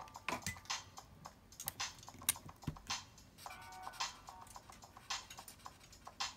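Irregular light clicks and taps of drawing on paper, with a brief phrase of simple electronic-sounding background music a little past the middle.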